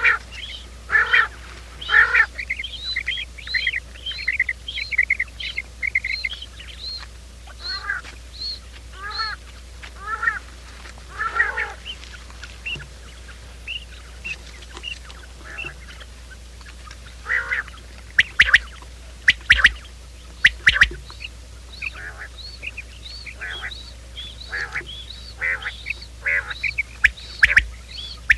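Quail calling in quick series of short chirping notes, used as a lure call for trapping. The notes come in bursts of about two or three a second, with a few sharper, louder notes past the middle.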